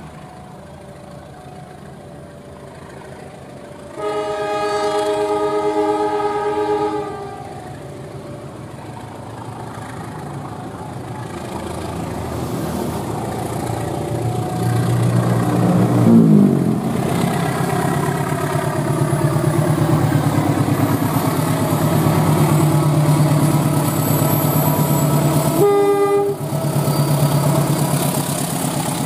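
Diesel-electric train locomotive sounds a long chord horn blast of about three seconds. The train then comes closer and passes with a loud steady engine drone, and the engine's pitch drops as it goes by. A short second horn toot comes near the end.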